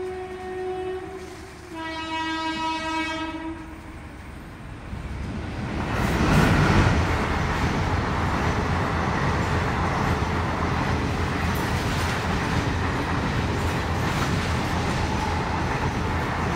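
A horn sounds twice in long, steady tones in the first few seconds. About six seconds in, a loud, steady rumble of passing vehicle noise sets in and holds.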